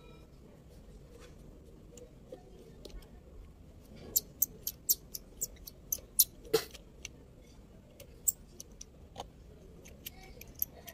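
Flat screwdriver working the screws of a small metal valve body off a throttle body: a quick run of about a dozen sharp metallic clicks in the middle, then a few scattered clicks.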